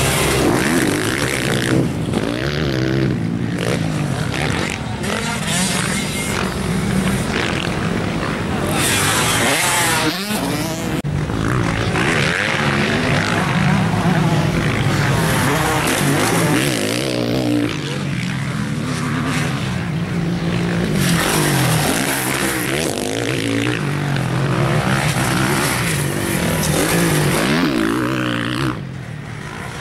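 Motocross dirt bike engines racing, revving up and down over and over, so the pitch keeps rising and falling. The sound dips briefly near the end.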